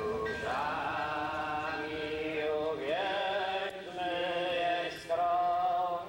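Voices singing a slow chant in long held notes, sliding up to a higher note about three seconds in.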